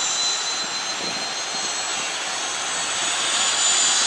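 Military Super Puma-family helicopter's turbine engines running on the ground, a steady high whine over a rushing noise, growing somewhat louder near the end.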